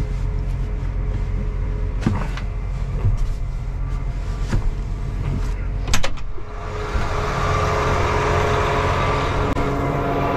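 John Deere 8RX 410 tracked tractor's diesel engine idling steadily, heard from inside the cab, with a few small clicks and knocks. About six seconds in a sharp click, the cab door opening, and the engine and outside noise come through louder and fuller.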